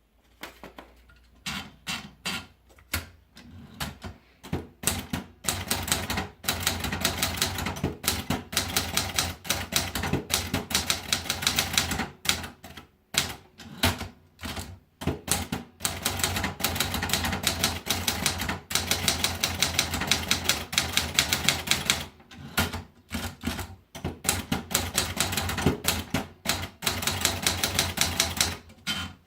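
Triumph Gabriele 25 manual typewriter being typed on: fast runs of keystrokes, the typebars striking the platen, broken by short pauses.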